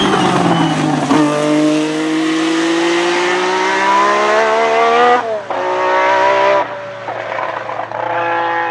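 A 1979 Renault RS10's 1.5-litre twin-turbo Gordini-Renault V6 accelerating hard. Its pitch climbs steadily, drops sharply at an upshift about five seconds in, then rises again before the sound fades somewhat near the end.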